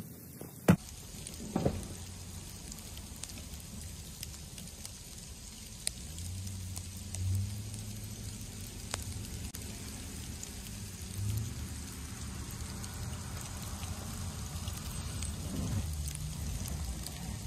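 Steady patter of falling wet hail, with a truck engine droning low in the background that swells about six seconds in and again around eleven seconds. Two sharp knocks near the start, the first the loudest sound.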